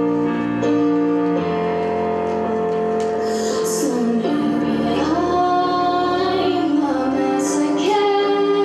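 A female singer holding long notes and sliding between pitches, over steady instrumental accompaniment.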